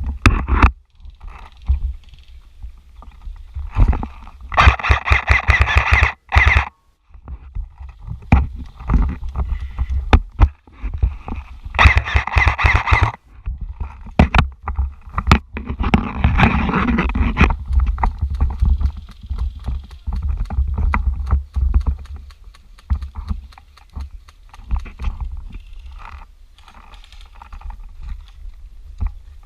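Movement noise: a heavy low rumble with knocks and scuffs, broken by two bursts of rapid, evenly spaced clicking, one about four seconds in and one about twelve seconds in, each lasting a second or two.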